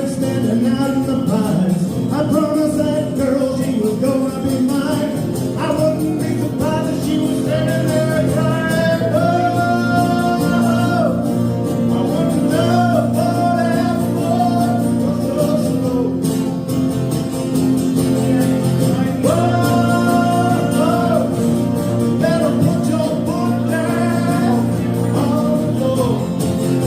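Live country song: a man singing over strummed acoustic guitar, with sustained, held vocal notes.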